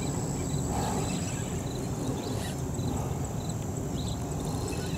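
Steady low outdoor rumble, like wind on the microphone, with faint high chirps repeating every second or so and a thin steady high tone.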